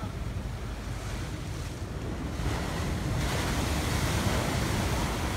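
Ocean surge washing and breaking around a floating dock, with wind buffeting the microphone. About three seconds in, a bigger surge sweeps in and the rush of water grows louder and hissier.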